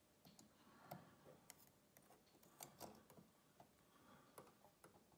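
Faint, scattered small clicks of steel tweezers against brass clock parts as the strike hammer is fitted into the movement.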